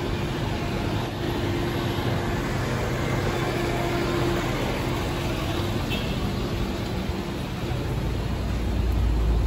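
Street traffic noise with the steady hum of an idling truck engine close by. A low rumble comes up near the end.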